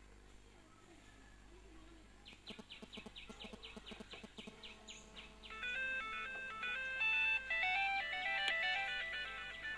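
Electronic tune of clean beeping tones: a fast pulsing run starts about two seconds in, then turns into a stepped melody that jumps between pitches and gets louder in the second half.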